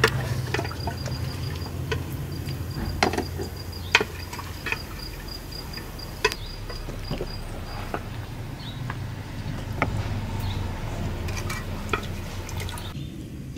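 Wooden ladle knocking and scraping against the inside of a metal cooking pot as chicken pieces are stirred and scooped out, a scattered series of sharp clinks over a steady low hum.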